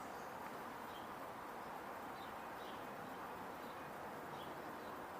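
Faint, steady background hiss of outdoor ambience, with a few brief distant bird chirps.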